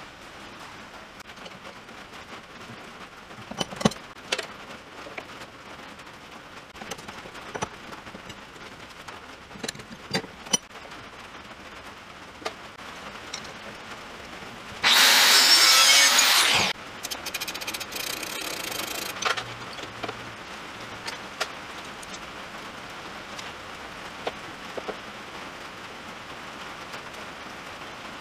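Clicks and knocks of metal parts and hand tools being handled, then a power tool running loudly on the aluminium brace for about two seconds, followed by about two seconds of quieter running.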